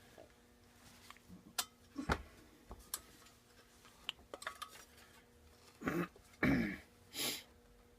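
Scattered light metal clicks and knocks from handling the parts of a disassembled small engine, followed by three louder, longer sounds about six to seven seconds in.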